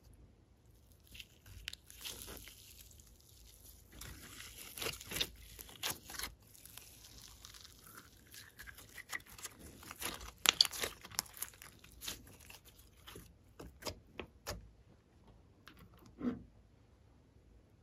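Sticky glitter slime with clay mixed in being pulled and stretched by hand, giving irregular crackling, tearing and popping sounds. There is a soft thud near the end.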